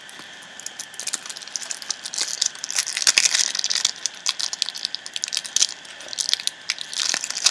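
Foil wrapper of a Panini Adrenalyn XL trading-card packet crinkling and tearing as it is pulled open by hand. Quiet for about a second, then a run of irregular crackles.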